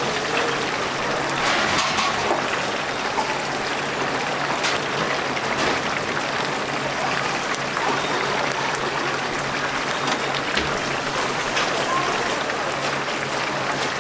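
Battered chicken pieces deep-frying in a commercial fryer: the hot oil sizzles and bubbles steadily, with occasional light clicks.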